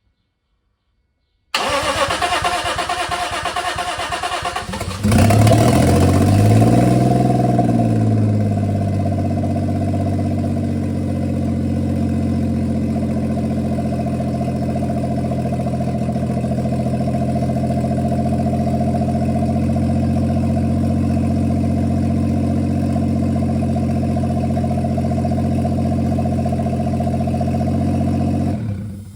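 Turbo-converted Lexus IS200's 1G-FE straight-six cranking on the starter for about three seconds, then catching with a brief flare in revs and settling into a steady idle. It is shut off near the end. The long crank before it fires is the fuel injectors still filling with petrol on this first start.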